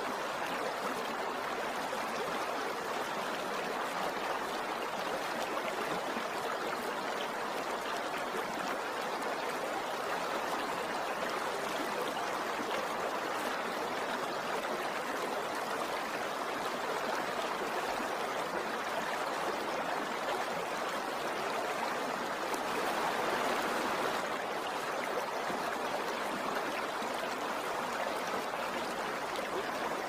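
River water rushing and splashing over rocks, a steady even flow that swells slightly about three-quarters of the way through.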